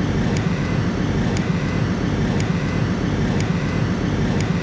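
Steady road and engine rumble of a moving car heard from inside the cabin, with faint regular ticks about twice a second.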